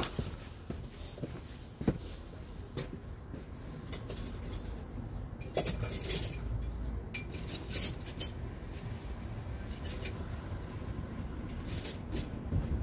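Scattered metallic clinks and taps of hand tools and metal parts being handled, with small clusters about halfway through and again near the end, over a low background rumble.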